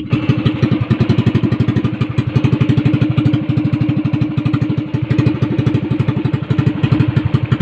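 Small fishing boat's engine running steadily under way, an even fast chugging of about ten beats a second.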